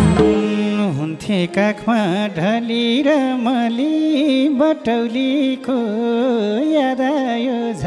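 A man sings a slow, ornamented Nepali dohori folk line into a microphone, his voice sliding and turning through long phrases over a steady held accompaniment. The drums stop just after the start, leaving voice and drone alone until near the end.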